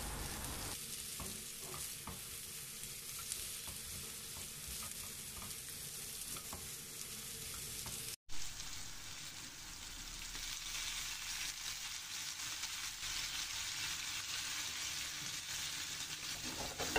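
Carrot sticks sautéing in olive oil in a non-stick frying pan, a steady sizzle, with a silicone spatula stirring them through the pan. The sizzle breaks off briefly about halfway, then carries on.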